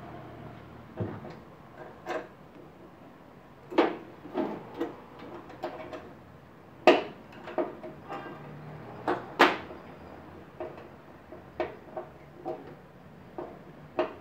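Irregular clinks and knocks of metal gas-hob burner parts being handled against the stainless steel cooktop while a burner is taken apart to reach its gas injector. The two loudest knocks come about seven and nine and a half seconds in.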